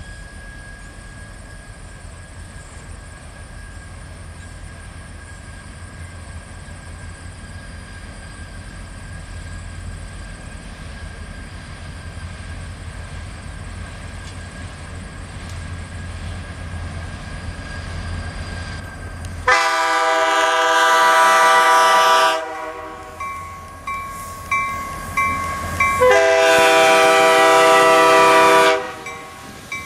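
EMD F-unit diesel locomotives approaching, a low rumble slowly growing louder. About two-thirds through, the locomotive air horn sounds a long blast, then a few weaker broken notes, then a second long blast near the end.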